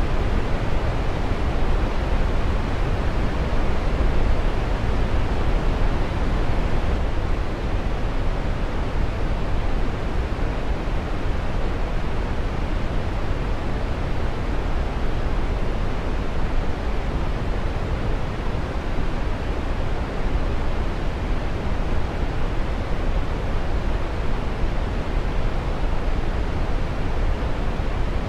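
A steady, even rushing noise, heaviest in the low end, with no tones or rhythm in it.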